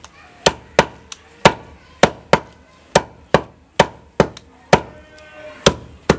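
Cleaver chopping goat meat on a wooden chopping block: about fourteen sharp strikes at an uneven pace of roughly two a second, with a short pause near the end.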